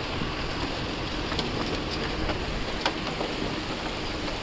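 River water rushing and splashing along the side of a moving ferry, a steady churning noise with a faint low hum beneath it. A couple of sharp ticks sound in the middle.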